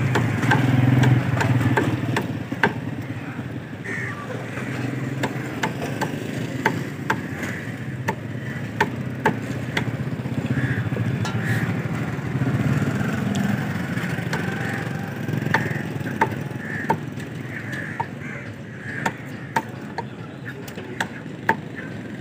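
Meat cleaver chopping chicken on a wooden butcher's block: sharp, irregular chops about one or two a second. Underneath runs the steady engine noise of street traffic.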